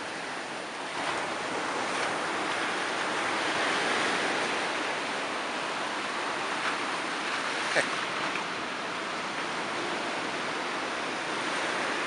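Surf washing steadily on the beach, swelling a little part-way through, with a sharp click about eight seconds in.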